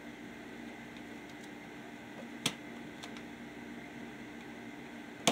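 Small sharp clicks of metal on a circuit-breaker terminal as a 14-gauge copper wire is fastened to a tandem breaker: one about halfway through and a louder one at the end, with faint ticks between. A steady low hum runs underneath.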